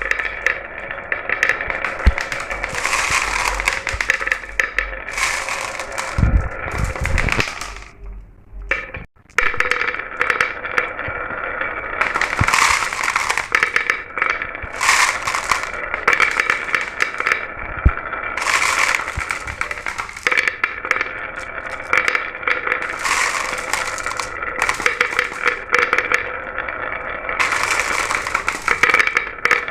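Many glass marbles rolling and clattering down a marble run track, a continuous rattle of clicks with a ringing rolling hum. It thins out briefly about eight seconds in, then picks up again.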